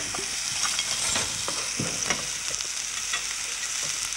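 Leeks and turnips sizzling steadily in saucepans as they caramelize with sugar, with a few light knocks of a utensil against a pan.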